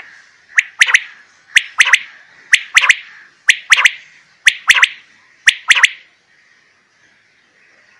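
Rain quail calling from a cage: six sharp, loud double notes, about one pair a second, the last pair about six seconds in.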